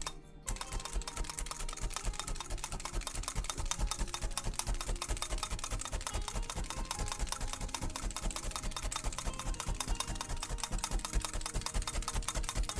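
Clover multi-needle felting tool stabbing rapidly into a wool ear on a felting pad: a fast, even stream of soft clicks and thuds, several a second. The hand tool's repeated punching felts and firms the wool sheet.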